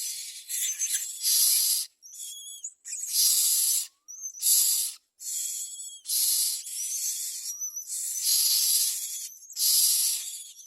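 Common myna nestlings begging for food: repeated harsh hissing calls, about one a second, with thin whistled notes between them.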